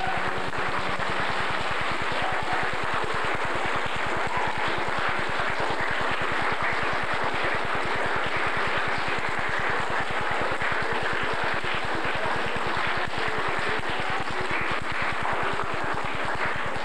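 Audience applauding steadily, with the performers on stage clapping along.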